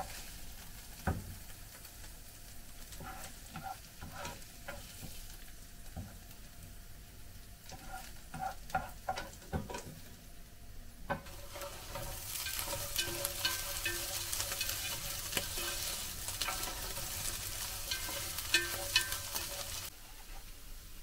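Utensil knocking and scraping against a pan. About eleven seconds in, food starts sizzling and crackling as it fries in hot oil, and the sizzling cuts off suddenly near the end.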